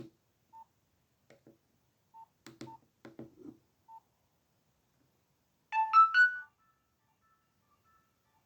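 Nokia 1680 classic mobile phone: keypad clicks and short key beeps as its menu is stepped through, then a short alert tone rising through three notes about six seconds in, the loudest sound. Faint electronic notes follow.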